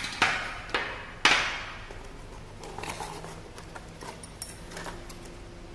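Bicycle hub parts being handled and set down on a hard surface: several sharp knocks in the first second and a half, then lighter clicks and rustling.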